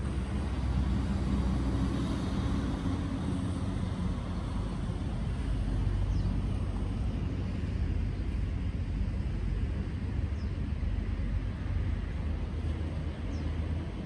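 Steady low rumble of road traffic, with a vehicle's engine a little louder for the first few seconds.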